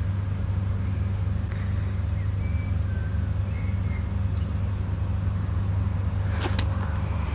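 Steady low outdoor rumble picked up by a phone's built-in microphone, with a few faint short chirps and a couple of sharp clicks near the end.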